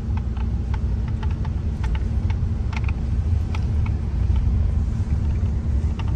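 Car driving along a road, heard from inside the cabin: a steady low engine and tyre rumble with a constant hum, and scattered light ticks and rattles over it.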